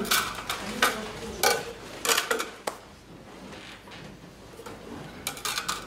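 Kitchen utensils and tools clattering on a countertop as they are picked up and set down: several sharp knocks over the first few seconds, a quieter stretch, then a quick cluster of clicks near the end.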